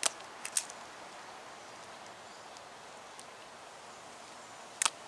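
Automatic wire strippers clicking as they strip an insulated wire: one sharp click at the start, two quick ones about half a second later, and another near the end, over a faint steady hiss.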